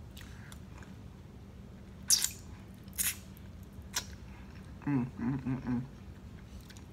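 Wet mouth sounds of eating smoked turkey tail with the fingers: three sharp lip smacks or sucks about a second apart, then a short low hum of 'mm-mm' in a few pulses.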